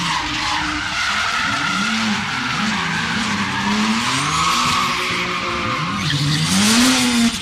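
Drift cars sliding in tandem: engines revving up and down with the throttle over a continuous screech of tyres skidding sideways.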